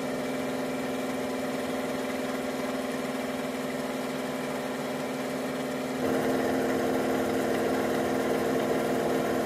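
A 1978 Powermatic-Burke Millrite milling machine's spindle runs steadily with a size 42 drill bit, drilling a lightening hole in a tattoo-machine armature bar. It is a constant motor hum, and about six seconds in it steps up louder with a fuller tone.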